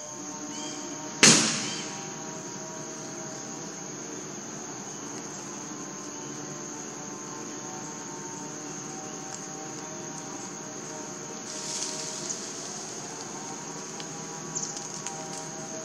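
Insects droning on one steady high pitch, with a single sharp crack about a second in, the loudest sound here.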